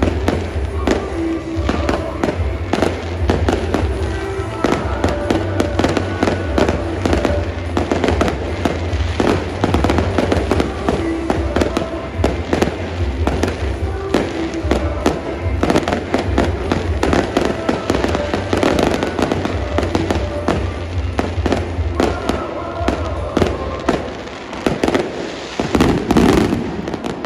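Aerial fireworks going off in rapid, dense bangs and crackles, with music playing underneath that stops a few seconds before the end.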